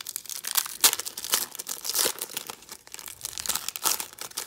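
Silvery foil wrapper of a hockey card pack being torn open and crinkled as the cards are pulled out: a dense run of sharp crackles and rustles.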